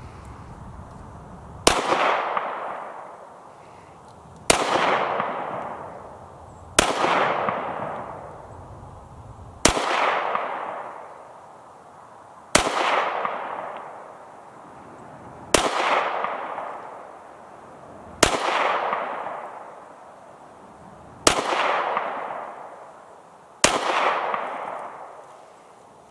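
Glock 48 9mm pistol firing Winchester white box ammunition: nine single shots in slow, deliberate fire, about one every two and a half to three seconds, each trailing off over about two seconds.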